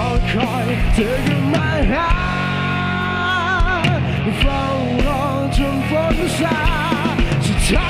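Rock band playing with a sung lead vocal; the singer's held notes waver with vibrato over steady bass notes.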